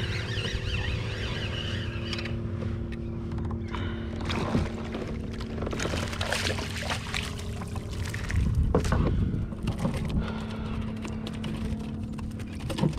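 Water splashing and sloshing as a hooked speckled trout is fought and brought alongside a kayak, with irregular splashes, the biggest about two-thirds of the way in. A steady low hum runs underneath.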